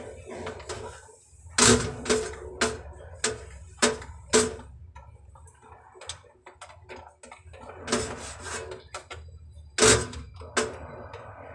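Irregular sharp clicks and knocks from a hand tool being worked on overhead PP-R plastic water pipes. There are about six between one and a half and four and a half seconds in, then a few more from about eight to eleven seconds.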